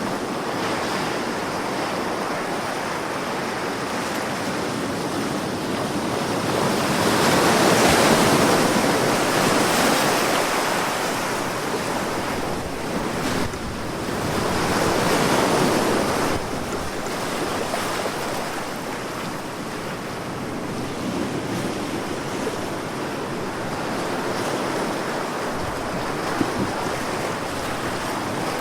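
Sea waves washing on a shore, a continuous surf wash that swells twice, about a quarter of the way in and again around halfway, with some wind.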